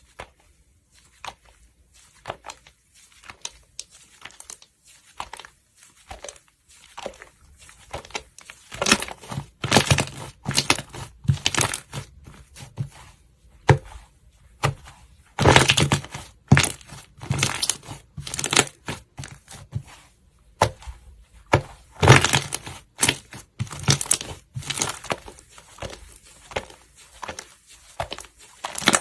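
Slime being squished and worked, giving irregular crackling and popping clicks in repeated loud clusters. The first several seconds are quieter.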